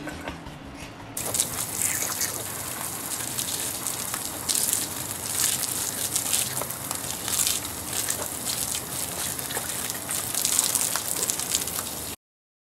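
Water gushing and splashing onto concrete paving, with irregular louder splashes. It starts about a second in and cuts off suddenly near the end.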